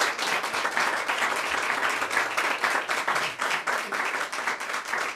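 Small audience clapping together in steady, dense applause.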